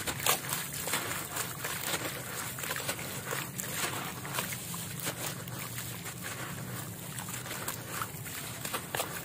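Dusty, crumbly concrete chunks crushed in the hands over a basin of water, a steady run of gritty crunching with crumbs and sand splashing and trickling into the water. The sharpest crunches come just after the start.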